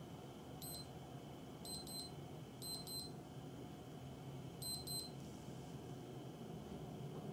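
Latitude Knight-1 digital watch beeping: a single short high beep, then three quick double beeps about a second apart.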